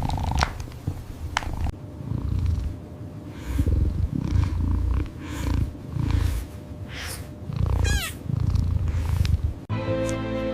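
Domestic cat purring in low, rhythmic waves, one roughly every second. About a second before the end it cuts off abruptly and music begins.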